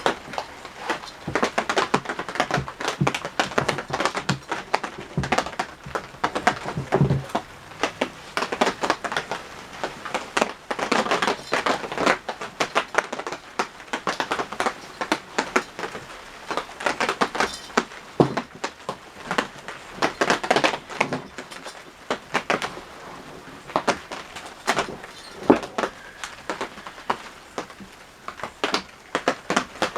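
Rain falling on the hut roof, heard from inside as a dense, irregular run of sharp taps and ticks.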